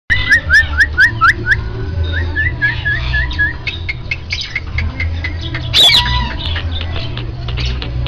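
Caged bird calling. It gives a quick run of rising chirps, about six a second, then sharp clicks and chatter, with one loud harsh call just before six seconds in. A low rumble sits underneath.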